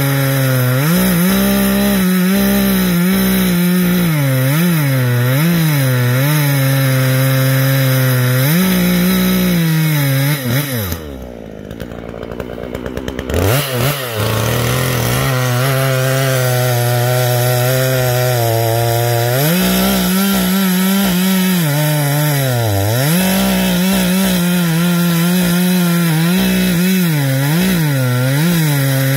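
Gas chainsaw with a 20-inch bar cutting through a log, the engine pitch repeatedly sagging under load and recovering. About eleven seconds in it drops to a quieter idle, then revs back up a few seconds later and cuts again.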